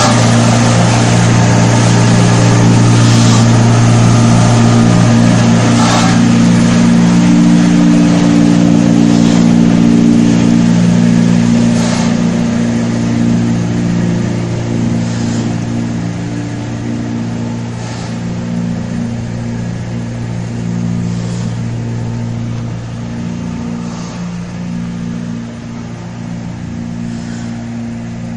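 Paper egg tray production line machinery running: a loud, steady hum, with a short hiss about every three seconds, growing fainter over the second half.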